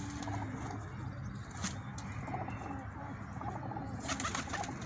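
Domestic pigeons cooing in a loft, low and steady, with a few light clicks and a short wing flutter about four seconds in.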